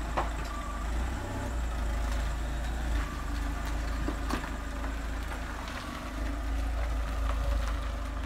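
Car engine running with a steady low rumble and a few faint clicks.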